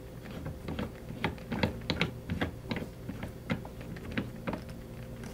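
Irregular light clicks and taps, a few per second, of a small metal pen tip and wooden pen barrel being handled and set into the pads of a homemade wooden screw pen press.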